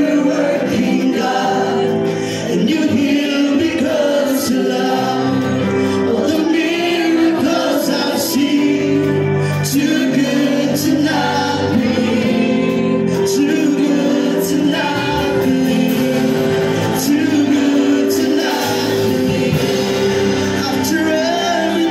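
Christian worship song with singing over steady sustained music.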